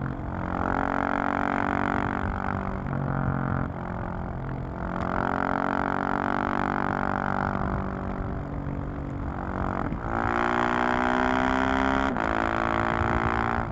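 Single-cylinder engine and exhaust of a 2020 KTM 690 SMC R supermoto heard onboard while riding, its pitch shifting with the throttle. The revs climb from about ten seconds in, then drop sharply about two seconds later.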